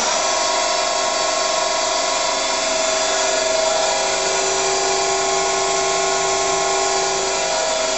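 Daewoo Puma 6G CNC lathe spindle started and spinning with no workpiece at about 1400 rpm: a steady mechanical whine of several tones that comes up right at the start and then holds even.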